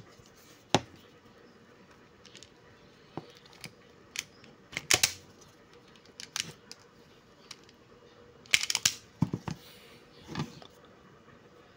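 Automatic wire stripper clicking and snapping as it grips and pulls the insulation off the ends of two stranded copper wires: a string of short, sharp clicks, with the loudest clusters about five and about nine seconds in.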